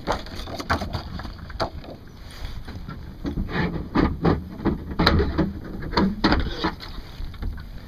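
Irregular knocks, taps and scrapes of handling on a plastic kayak's hull and deck, heaviest around the middle, over a low rumble.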